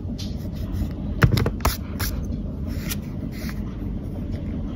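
Pencil scratching on notebook paper as numbers are written, with a few sharp knocks a little over a second in.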